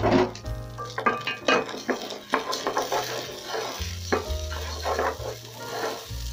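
Wooden spatula stirring and scraping oil-coated raw rice around a hot stainless steel pot, in irregular strokes, with a light sizzle of the oil as the rice fries.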